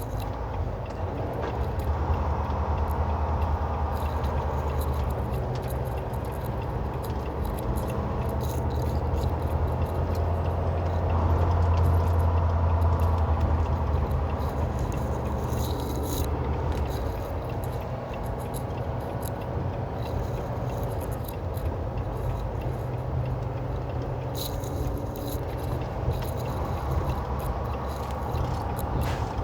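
Semi truck's diesel engine running under way, heard inside the cab as a steady low drone that grows louder for a few seconds about a third of the way in. Loose items in the cab rattle and click over it.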